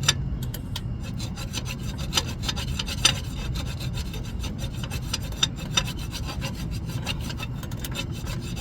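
Repeated short rasping strokes of paint being scraped off bare metal at an engine ground point, cleaning the contact on a freshly painted new engine to get a good electrical ground.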